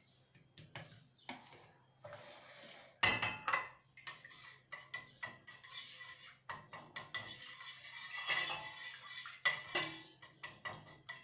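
A metal spoon scraping and clinking against a steel pot, stirring tomato paste into olive oil. Quiet scooping at first, then quick repeated clinks and scrapes from about three seconds in.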